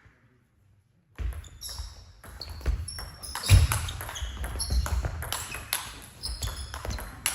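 Table tennis rally: a celluloid-plastic ball clicking off the bats and bouncing on the table in quick succession, with shoes squeaking on the hall floor. It starts about a second in, after a silent gap.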